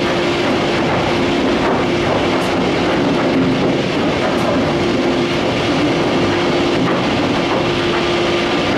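Heavy industrial plant machinery running: a steady, loud mechanical din with a constant hum through it.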